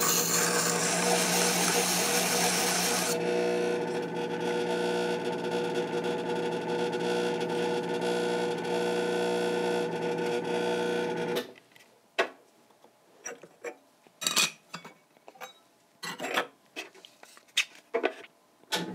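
Motorised diamond grinding wheel running with a steady hum; for the first three seconds a carbide graver is ground against it, a loud hissing grind. The hum cuts off about eleven seconds in, and light clicks and knocks follow as the graver's plastic geometry block is handled.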